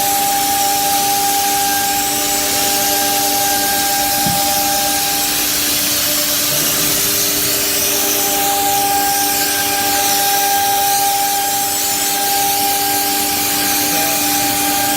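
CNC nesting router running, a steady whine from its spindle over a loud hiss of cutting and dust extraction; the highest whine drops out for a couple of seconds near the middle.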